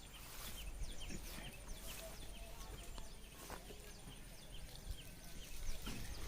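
A bird repeating a short falling call about twice a second, faint, over wind noise.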